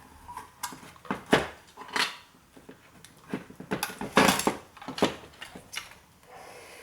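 Hand tools clicking, knocking and scraping against the metal casing of an old 1980s hard drive as its last fastener is worked loose. The knocks come singly every half second or so, with a longer scrape a little after four seconds.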